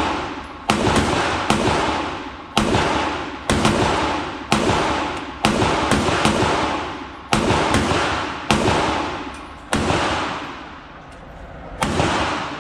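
Glock 43X 9mm pistol with a ported barrel firing about ten shots at roughly one a second, each sharp crack echoing and fading before the next in an indoor range.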